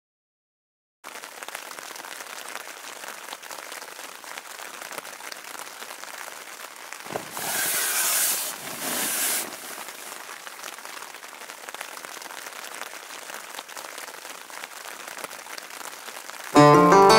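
Steady rain pattering on the fabric of a tent, heard from inside, starting about a second in. Around the middle there is a louder rustle lasting a couple of seconds, and acoustic guitar music comes in near the end.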